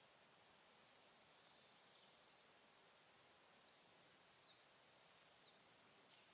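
Gundog training whistle blown by the handler: one high, sustained blast, then two short pips that each rise and fall in pitch, giving directions to a pointer hunting for a blind retrieve at long range.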